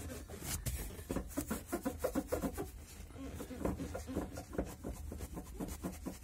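Rapid light clicking and rubbing from loose car-interior parts, the seat-back hinges and trim, being worked by hand to find a rattle, over a steady low hum.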